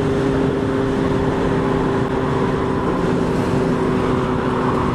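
Honda CB650F inline-four motorcycle engine running at steady revs while cruising, under a constant rush of wind and road noise.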